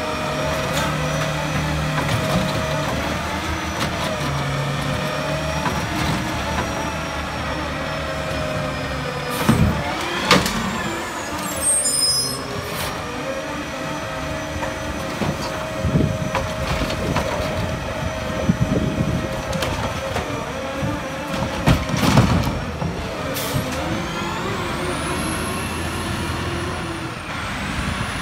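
Autocar ACX garbage truck with a New Way Roto PAC automated side-loader body working at the curb: the engine and hydraulics run with a steady whine while the arm lifts, dumps and sets down a cart. Several clunks from the arm and cart, a short air-brake hiss about twelve seconds in, and a rising whine near the end as the truck moves off.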